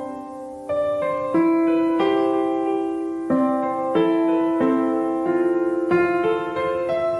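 Background piano music: slow, sustained chords, a new chord struck every second or so.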